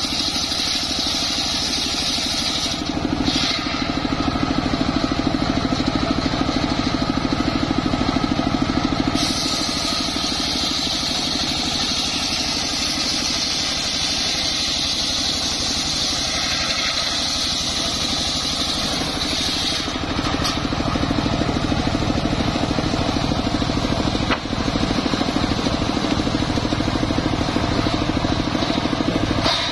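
Engine-driven home-built circular saw bench running steadily while its blade rips a johar log lengthwise. The high cutting sound swells and eases a few times as the log is fed through the blade.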